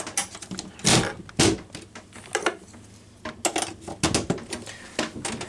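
Plastic clicking and knocking as snap-in feet are fitted onto a Lasko 3733 box fan's plastic housing. There are two louder knocks about a second in, then irregular lighter clicks.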